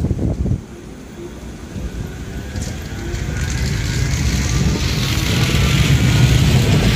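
Metrolink tram approaching on the rails, its running noise growing steadily louder, with a faint rising whine. Wind buffets the microphone for the first half second.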